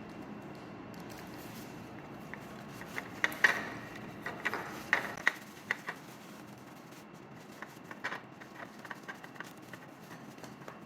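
Light clicks and taps with some rubbing as the small plastic parts of an opened water timer are handled, in a cluster near the middle and a few more later.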